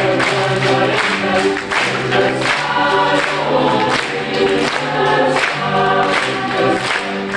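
Mixed youth choir singing, several voice parts sounding together.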